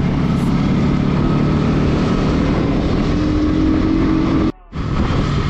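Bajaj Pulsar NS200 single-cylinder engine running under way, mixed with steady wind rush, its note rising a little just before the sound cuts out for a moment about four and a half seconds in.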